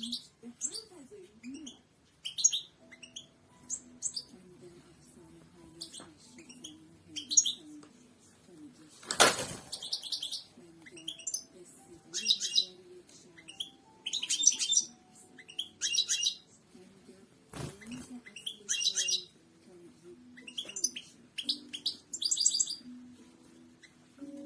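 European goldfinch singing: repeated bursts of fast twittering and trilled phrases. Two sharp knocks stand out, about 9 and 17 seconds in.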